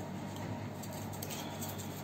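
Kitchen knife scraping the scales off a whole rawas fish: faint rasping strokes of the blade against the skin, over a low steady hum.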